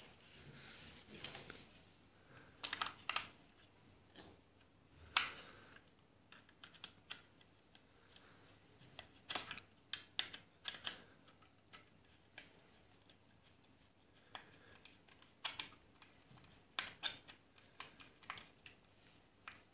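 Light wooden clicks and knocks, coming irregularly and sometimes in quick clusters, as the sliding bolt of a wooden replica rifle is worked back and forth by hand.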